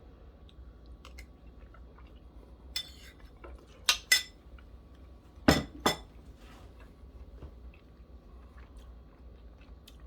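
Cutlery clinking against a dish, about five sharp clinks in a cluster near the middle, the loudest two pairs around 4 and 6 seconds in.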